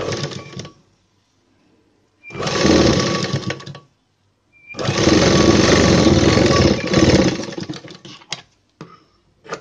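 Electric tailoring sewing machine stitching a seam in cotton blouse fabric in three runs: a brief one, one of about a second and a half, and a longer one of about two and a half seconds that winds down. A few short clicks follow near the end as scissors trim the thread.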